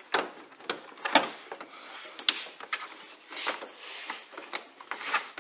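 The Ford Ranger T6's plastic top tray over the grille being handled and pressed back into its clips: a handful of sharp plastic clicks and knocks about a second apart, with plastic scraping and rubbing under the hands in between.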